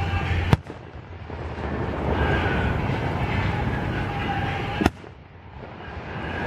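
Fireworks display: two aerial shells burst with sharp bangs about four seconds apart. The steady background noise drops away briefly after each bang and then builds back.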